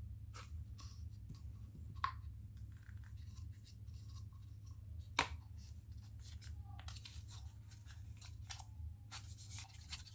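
Small clicks, taps and rubbing from hands working the plastic drain pump housing and its rubber gasket while the gasket is seated in its groove, with two sharper clicks about two and five seconds in, over a steady low hum.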